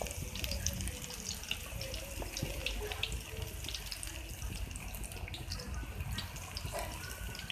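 Besan-coated spinach pakoras deep-frying in very hot oil in a kadai: a steady sizzle with many small crackles and pops.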